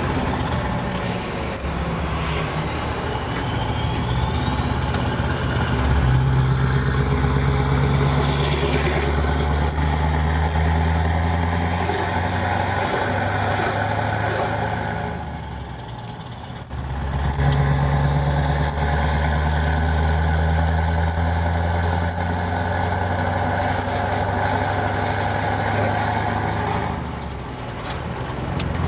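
Scania R500 truck's V8 diesel running under way, heard from inside the cab, a steady low drone with its pitch stepping up about a fifth of the way in. The engine note drops away briefly about halfway through and again near the end, then picks up again.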